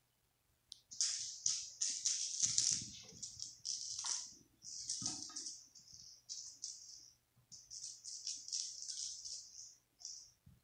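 A cat batting a small toy ball about on a tiled floor: a run of short, scratchy, high-pitched clattering sounds in quick clusters, with a couple of duller knocks, starting about a second in and stopping just before the end.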